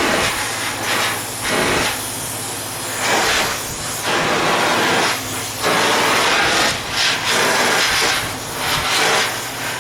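Gas torch flame hissing steadily, swelling and easing several times as it heats the spine of a knife blade for tempering.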